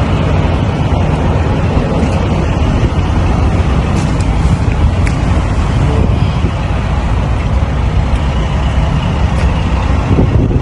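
Steady rumble of a vehicle driving along the road, towing a trailer, with a few faint clicks.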